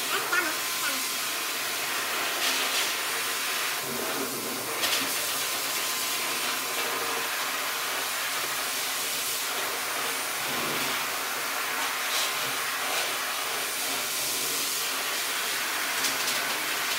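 Corded electric dog clippers running steadily as they shave through a Husky's thick coat, a continuous whirring hiss.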